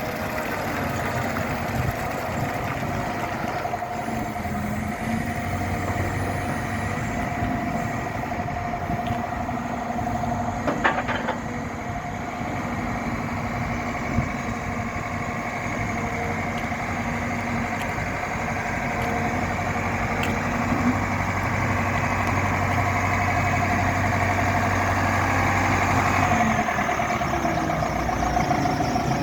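Diesel engine of a Liebherr LH 35 M Litronic timber excavator running steadily, with a single sharp knock about eleven seconds in. The engine grows somewhat louder in the second half, then eases back near the end.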